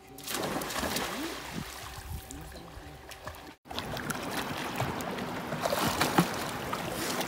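Water rushing and splashing, as around a small boat moving on the sea, with a brief dropout about halfway through.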